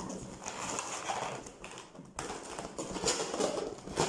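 Inflated latex balloons squeaking and rubbing against each other as they are twisted and locked together by hand. The sound comes in irregular scratchy strokes with a short lull about two seconds in.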